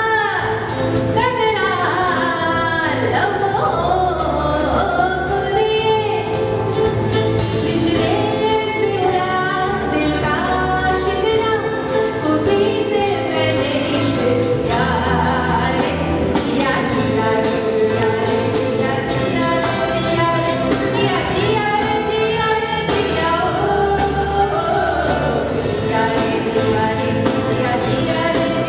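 A woman singing a melody into a microphone over a live band: electric guitar, bass guitar, drum kit and keyboard, steady bass notes under the voice.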